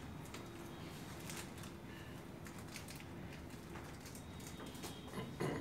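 Quiet room tone with a few faint scattered clicks and rustles, and a faint steady hum for about three seconds.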